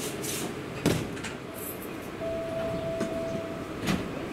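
Front-end coupling and gangway mechanism of a Tobu 500 Series Revaty train working during automated dividing. There is a brief hiss at the start, a sharp clunk about a second in, and another near the end, with a steady single tone held for about a second and a half between them.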